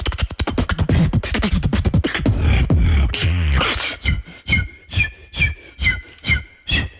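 Beatboxing: about two seconds of fast clicking, then a deep wavering bass hum. About four seconds in it changes to short whistle-like chirps, about two and a half a second.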